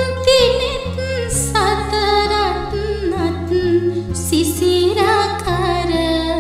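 A Sinhala verse sung slowly in a wavering, ornamented melody over backing music with held low bass notes.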